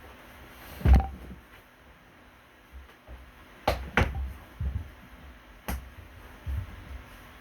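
A few scattered knocks and clicks of handling, the loudest about a second in, then a close pair and one more a couple of seconds later, with softer low thuds between.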